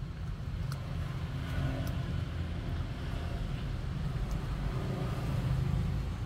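A puppy gnawing on a duck bone, giving a few faint sharp crunching clicks, over a loud steady low rumble.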